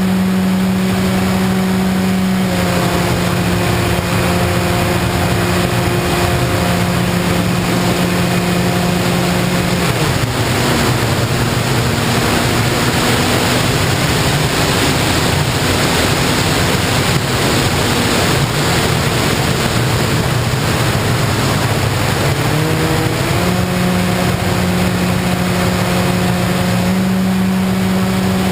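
Model airplane's propeller motor running steadily in flight over a rush of air. About ten seconds in the motor tone drops away as the throttle comes off and the air rush takes over, then a few seconds before the end the tone climbs back up in steps as the throttle is opened again.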